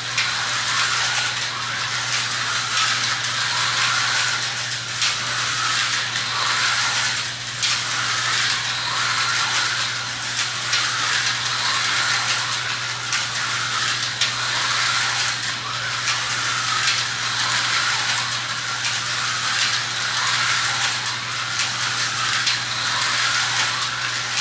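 Vintage Tyco HO slot cars running laps on a plastic slot track: a steady rattling buzz from the small cars, rising and falling a little as they go round, over a steady low hum.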